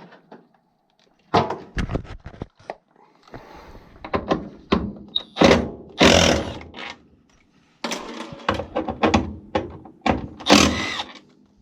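Irregular metal knocks and clunks from a furnace's draft inducer fan and sheet-metal cabinet being handled as the fan is worked loose.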